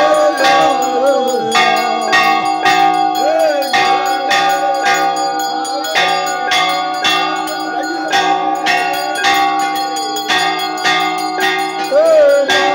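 Temple bells struck in a steady rhythm during an aarti, about one and a half strokes a second, their ringing carrying on between strokes, with a voice wavering over them.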